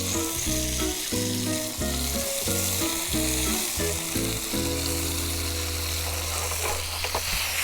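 Oil sizzling steadily in a frying pan with garlic and tomato frying in it. Background music with a low, stepping melody plays underneath.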